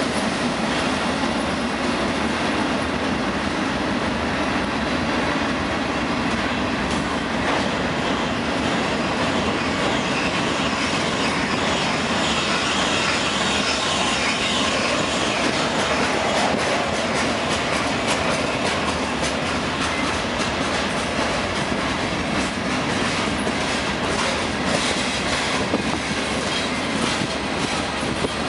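Freight cars rolling past at close range: a steady rumble and rattle of steel wheels on the rails, with light clicking from the wheels over the track.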